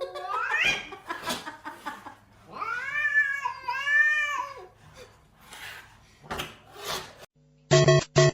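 Cat yowling: a rising call, then two long, wavering drawn-out calls, followed by a few short knocks. Music cuts in near the end.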